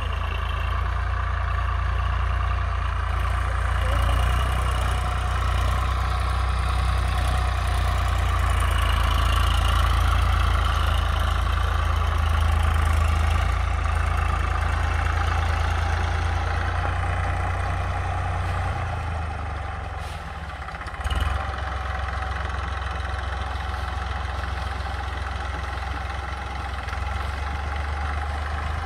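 Farm tractor's engine running steadily as it pulls a tillage implement through orchard soil. The sound dips briefly about two-thirds of the way through, with a short knock.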